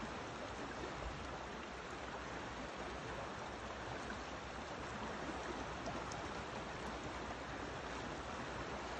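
Steady rushing of a fast river current running over a rocky, riffled bed.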